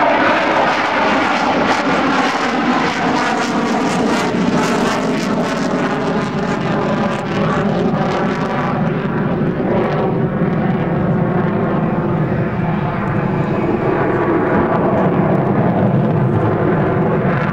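Jet engine of an F-16D Fighting Falcon, loud throughout as the fighter flies past and pulls away; its high hiss fades about halfway through while the deep rumble carries on.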